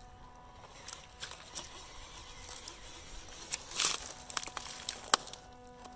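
Dry leaves and twigs crunching and crackling under a small RC crawler working over rock, with a louder rustling crunch near the middle and a sharp snap about five seconds in. A faint steady hum runs underneath.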